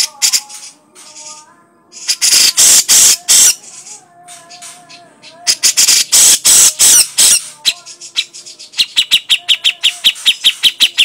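Cucak jenggot (grey-cheeked bulbul) giving its harsh chattering crecetan call: two loud rasping bursts of about a second and a half each, then a fast run of short ticking notes near the end. Faint thin whistled notes sound in between.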